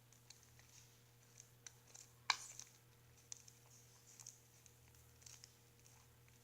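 Faint sticky clicks and small squelches of homemade glitter-glue slime being kneaded by hand, with one sharper pop a little over two seconds in.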